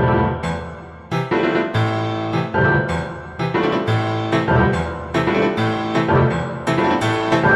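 Background music: an instrumental passage led by piano, with chords and notes struck in a steady rhythm over a bass line.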